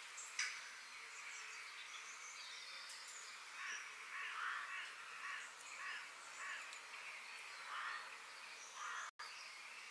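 Forest birds chirping and calling over a steady background hiss, with a denser run of calls in the middle. The sound cuts out for an instant near the end.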